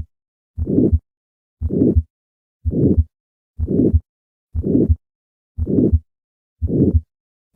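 Heart sounds through a stethoscope diaphragm at the second right intercostal space, about one beat a second, with a harsh crescendo-decrescendo systolic murmur filling each gap between the first and second heart sounds. This is the murmur of aortic stenosis.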